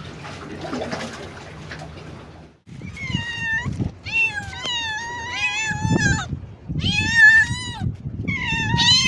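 A cat meowing over and over, about five high-pitched meows one after another in the second half.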